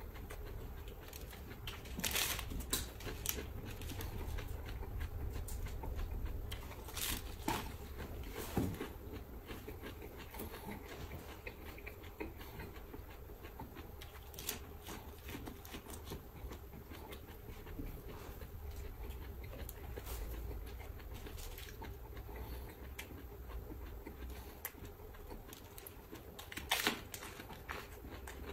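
Close-up eating sounds of a man biting and chewing raw lettuce leaves: crisp crunches and wet munching at irregular intervals over a steady low hum, with the sharpest crunches about two seconds in, around seven to nine seconds in, and near the end.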